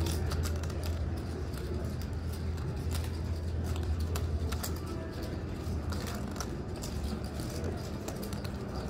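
Poker chips clicking as players handle their stacks, many short sharp clicks at irregular moments, over a steady low hum of room noise.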